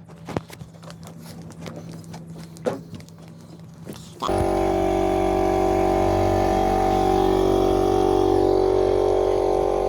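Scattered light knocks and clicks, then about four seconds in a motor starts suddenly and runs steadily at a constant pitch.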